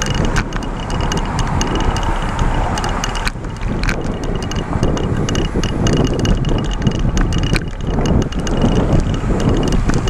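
Wind buffeting the microphone of a moving bicycle, with a steady rumble of tyre and road noise and a scatter of light, irregular ticks and rattles.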